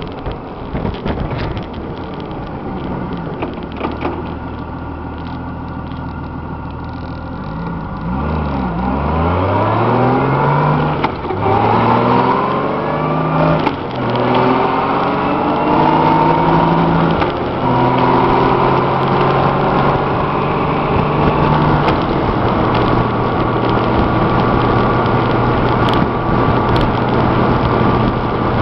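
Honda GL1500 Goldwing's flat-six engine running at road speed under constant wind and road noise. At first it runs steadily. About eight seconds in the pitch drops, then it accelerates through several gears, the pitch climbing and falling back at each shift, and it settles to a steady cruise for the last several seconds. The road noise comes from new Kenda Kruz tires, and the rider is asking whether they are noisy.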